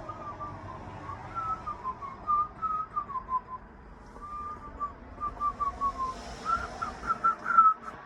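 A person whistling a tune, the notes rising and falling, with a faster run of short, louder notes near the end over a faint low rumble.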